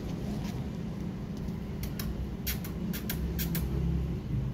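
Steady low rumble, with a quick run of about eight short, sharp ticks from about two seconds in until past three and a half seconds.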